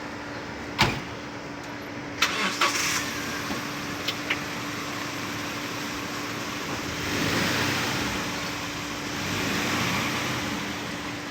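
A car with its engine running: a sharp knock about a second in and a few clicks soon after, then the engine noise swells louder in the second half.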